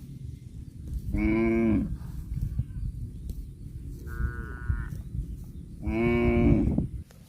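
Cattle mooing: two loud calls of about a second each, one about a second in and one near the end, with a fainter, higher call between them, over a low rumbling noise.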